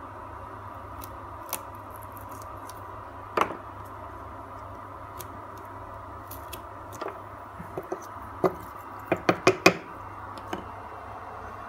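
Light clicks and taps of small CNC-cut wooden pieces being handled and brushed through sawdust on the machine bed: one sharp click a few seconds in and a quick run of about five clicks near the end, over a steady low hum.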